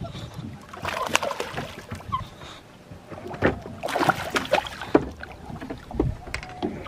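A hooked fish splashing and thrashing at the water's surface beside the boat as it is reeled in: a few splashes about a second in, then a quicker run of splashes in the middle, over the sound of lapping water.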